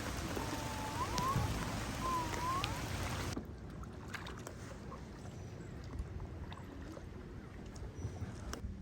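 Steady rushing noise, like water or wind, with a few short gliding whistled calls. About three seconds in it cuts abruptly to a quieter background with scattered light clicks and knocks.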